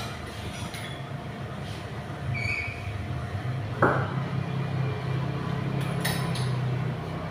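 Motorcycle engine with a tuned K3 carburettor running steadily, with a single sharp knock about four seconds in and a few faint clinks.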